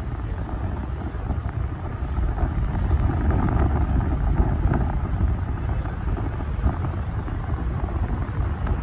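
Steady low rumble, like wind buffeting the phone's microphone while it moves.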